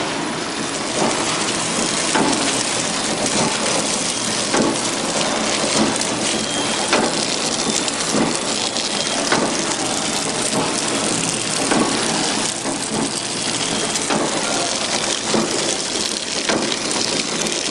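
Soap-making and pillow packing machinery running: a steady mechanical rush with frequent, irregular clicks and knocks.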